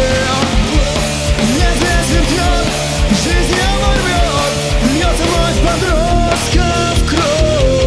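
Rock music: drums and bass under a melodic lead line that bends and slides in pitch, settling into a long held note near the end.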